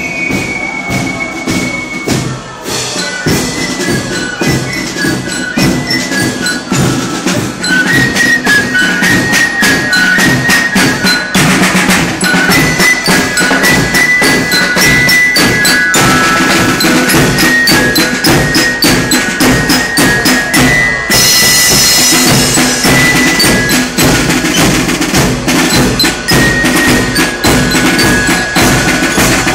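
German Spielmannszug, a fife-and-drum marching band, playing a march: flutes carry the melody over a bell lyre (marching glockenspiel), with snare drums and bass drum keeping a steady beat.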